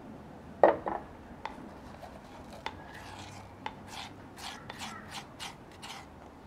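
Food preparation sounds: a sharp knock about half a second in, a few light taps, then a run of about eight quick scraping strokes near the end.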